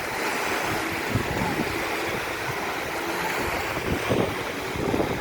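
Wind buffeting the microphone in low, gusty rumbles over the steady rush of waves breaking on the beach.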